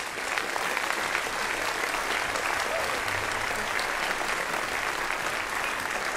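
A large audience applauding, a dense and steady mass of clapping.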